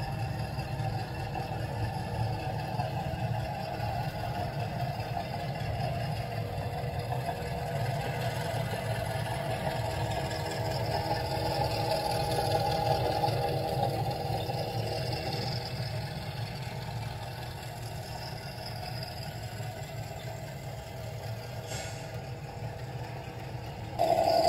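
Model Amtrak P42 diesel locomotive and passenger cars running along the layout's track: a steady rolling rumble and motor hum that grows louder about halfway through as the train passes close, then eases off. Near the end the sound jumps suddenly louder.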